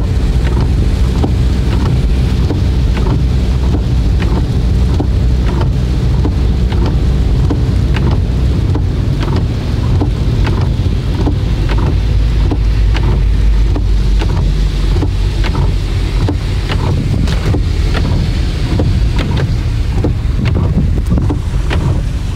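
Car cabin noise while driving on a rain-soaked road: a steady low rumble of tyres and engine, with frequent short ticks scattered through it.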